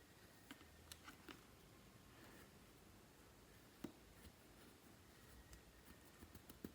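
Faint, scattered small clicks and pops of clear slime being pressed and mixed by hand, a few close together early on, one at about four seconds and another near the end, over quiet room tone.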